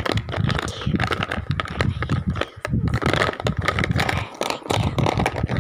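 Crayons clicking and rattling against each other and against a plastic tray as a hand rummages through them.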